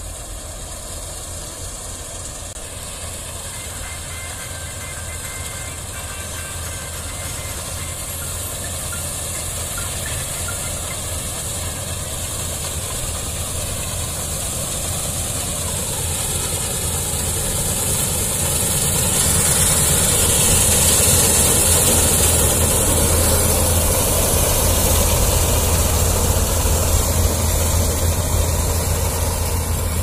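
K.RAMA 1000 combine harvester running while it cuts and threshes standing wheat: a steady engine drone with a hiss of machinery and crop over it. It grows louder as the machine comes close and is loudest from about twenty seconds in.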